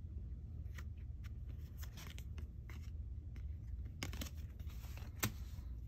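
Foil trading cards being handled and flipped in the hand: faint rustles and light clicks as each card is slid to the back of the stack, with one sharper click near the end, over a low steady room hum.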